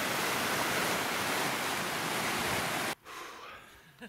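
Fast stream rushing over rocks in white rapids, a loud steady rush that cuts off abruptly about three seconds in.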